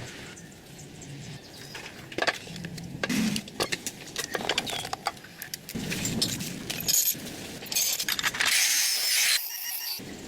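Clicks, clinks and knocks of small hard parts being handled during handcrafting, with a short hiss of about a second near the end.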